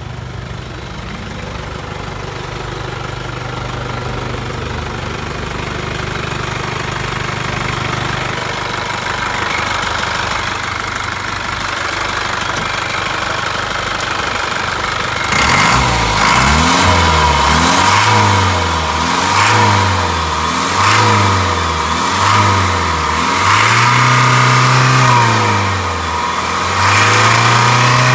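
Isuzu Elf truck's engine idling steadily, then revved about halfway through in a string of quick blips that rise and fall in pitch about once a second, followed by longer held revs near the end.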